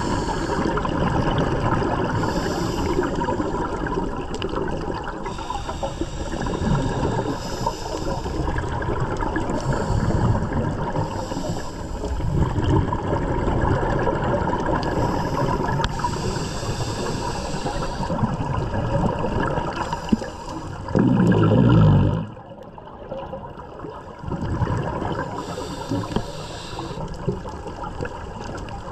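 Scuba regulator breathing heard underwater: a hiss on each inhale every two to three seconds over a steady rush of exhaled bubbles. A loud burst of bubbles comes about 21 seconds in, followed by a couple of quieter seconds.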